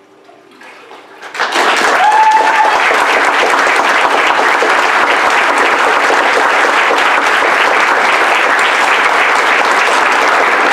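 Congregation applauding, breaking out suddenly about a second and a half in and going on steadily, with a brief high cheer just after it starts.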